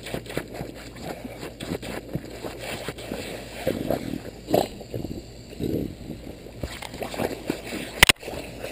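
Bulldog puppy biting and snuffling at a lawn sprinkler's water spray, with irregular wet scraping and spattering sounds. There is a single sharp knock about eight seconds in as the dog bumps the camera.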